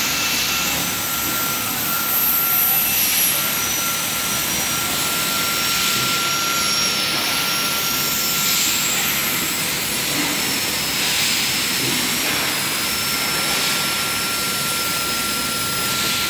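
Steady hiss of compressed air from a pneumatic machine that inflates rubber bladders, with a thin steady whistle that drops out for a few seconds just past the middle and then returns.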